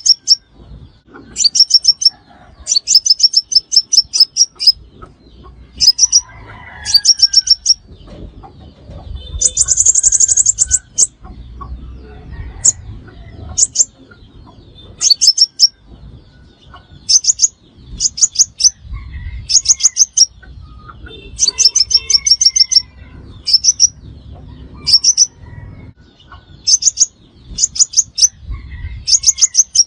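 Sunbird calling: short, high, rapid trills repeated every second or two, with a longer, denser burst about ten seconds in.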